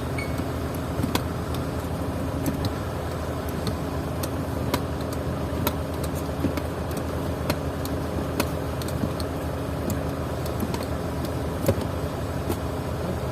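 A motor vehicle engine idling steadily, with about ten irregular sharp clicks and taps over it, the loudest near the end.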